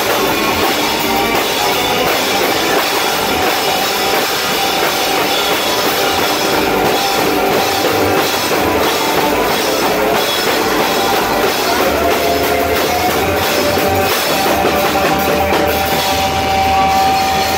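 Live rock band playing loud and dense: drum kit with cymbals, guitars and bass, heard from right beside the stage. A steady high note is held from about two-thirds of the way through.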